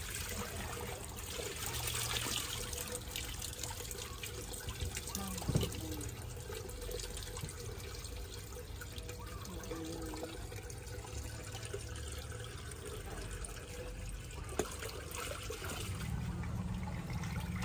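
Water trickling steadily, with a few brief faint voices.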